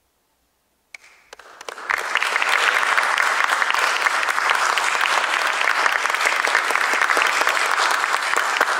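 Audience applause: it breaks out suddenly about a second in with a few scattered claps, fills in to full, steady clapping within another second, and keeps going.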